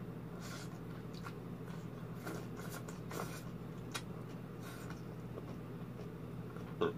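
Close-up mouth sounds of eating shredded papaya salad by hand: soft wet chewing and slurping, a short sound every second or so over the first five seconds, over a steady low hum. A sharper click comes just before the end.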